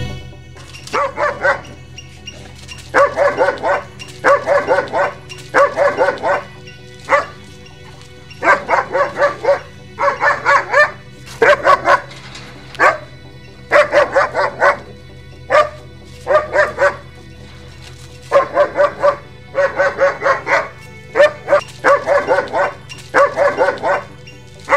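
German Shepherd barking in quick runs of three to five barks, the runs repeating every second or two, over a steady low background drone.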